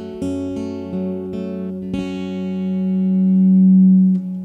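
Acoustic guitar ending a song: a few strummed chords, then a last chord left ringing, its low note swelling louder until it is cut off sharply near the end.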